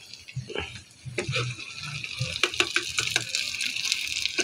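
Oil sizzling as a battered vegetable okoy fritter deep-fries in a wok, the hiss growing stronger about a second in. A metal spatula clicks and scrapes against the wok as it works the fritter.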